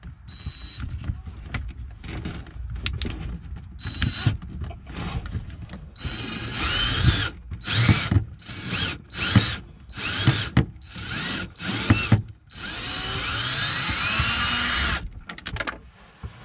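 Cordless DeWalt drill-driver backing out screws: its motor runs in a string of short trigger pulses, each whine rising as it spins up, then holds one longer run of about two and a half seconds near the end.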